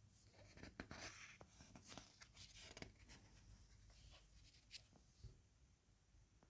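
Faint rustling with a few light clicks and ticks in the first half, fading to near quiet, like something being handled close to the microphone.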